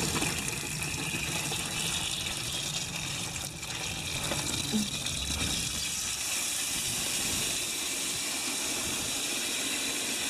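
Water gushing steadily into a plastic bucket of ice, with the sound growing brighter after about six seconds as the bucket fills.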